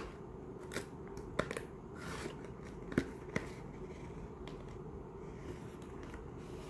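Cardboard booster display box being pried open by hand: a few sharp clicks and a short soft rustle as the lid flap is worked up.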